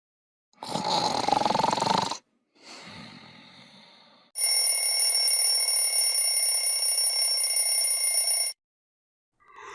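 Alarm clock bell ringing steadily for about four seconds, then cutting off suddenly. Before it come a loud wavering sound of about a second and a half and a quieter one that fades away.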